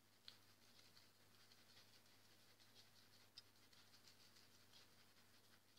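Near silence: powdered sugar being sifted over muffins, a faint soft patter with two small ticks, the first about a third of a second in and the second a little past the middle.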